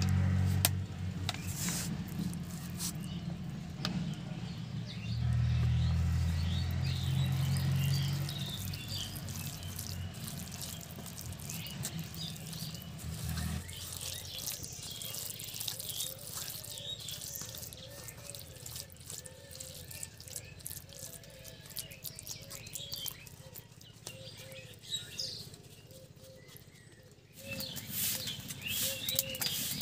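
Wet squishing and patting of hands mixing small mourala fish with spice paste on a banana leaf, with birds chirping in the background. A low steady hum runs under the first half and stops abruptly about halfway through.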